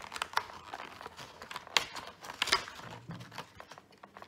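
Cardboard door of a Kinder advent calendar being torn open and a foil-wrapped chocolate pulled from its compartment: irregular crinkling and tearing crackles, with a few sharper snaps.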